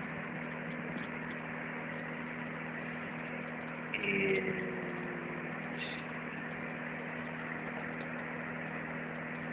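Steady electrical hum with an even hiss, like a small appliance or fan motor running, with a brief faint squeak about four seconds in.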